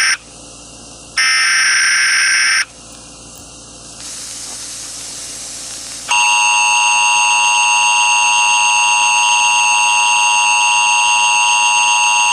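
Emergency Alert System header: two short, harsh bursts of digital data tones about a second apart, then about six seconds in the steady, loud two-tone EAS attention signal starts and holds.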